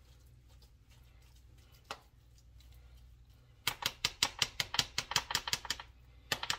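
A spoon patting stuffing down in a disposable aluminium foil pan. There is a single tap about two seconds in, then a quick run of about six sharp taps a second lasting around two seconds, with two more taps near the end.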